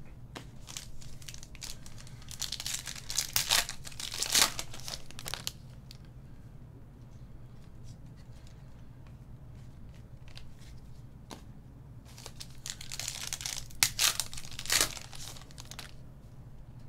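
Foil wrappers of Panini Select basketball card packs being torn open and crinkled, in two spells of sharp crackling about ten seconds apart.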